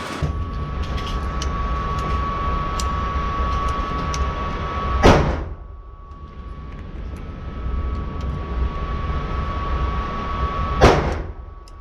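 Two gunshots at an indoor shooting range, about six seconds apart (roughly five and eleven seconds in), each a sharp crack with a short echo, over a steady background rumble and faint hum.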